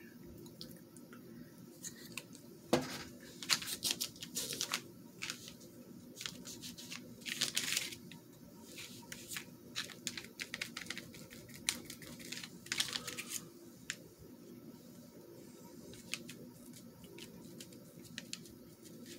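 Small sponge dabbing gold paint through a stencil onto paper: irregular short scratchy dabs, thickest from about three to thirteen seconds in, then sparser and fainter. A sharp click comes about three seconds in.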